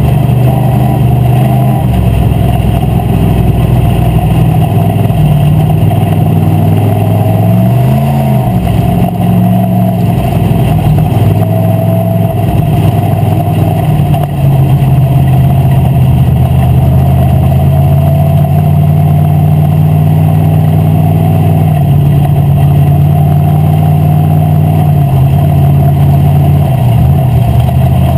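Street stock race car's V8 engine running loud, heard from inside the cockpit, holding fairly steady revs with a brief rise and fall about eight seconds in and a few small dips near the end.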